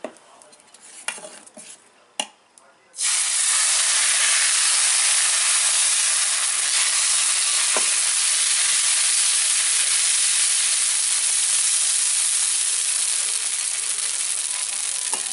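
Appam batter sizzling on a hot, oil-seasoned iron tawa. A few faint clicks come first, then about three seconds in a sudden loud, steady sizzle starts as the batter is poured and spread thin with a ladle, easing slightly near the end.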